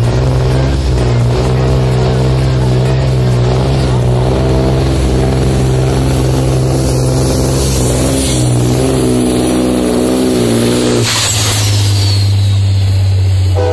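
Heavy truck's diesel engine running hard under full load during a truck pull, its pitch wavering as it strains. About eleven seconds in the sound changes sharply to a steadier low drone.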